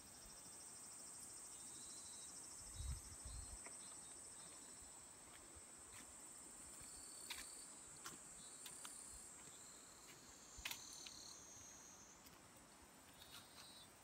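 Faint, steady high-pitched trilling of insects in the summer vegetation, with shorter chirps now and then, a few sharp clicks and a brief low thump about three seconds in.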